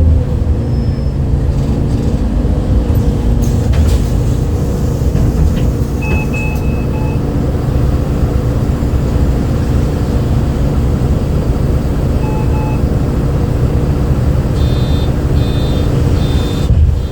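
MAN D0836 inline-six diesel of a MAN Lion's City bus heard from inside the bus, running steadily at low revs, with the unusual engine note it had on this day. Short electronic beeps sound twice in the middle, and a quick run of repeated beeps comes near the end.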